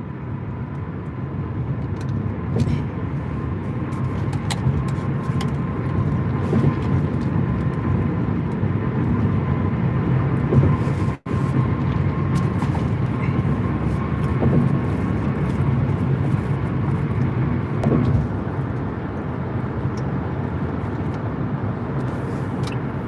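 Steady low road and engine rumble inside a car cruising at highway speed, with a faint steady high whine and scattered small ticks. The sound cuts out for an instant near the middle.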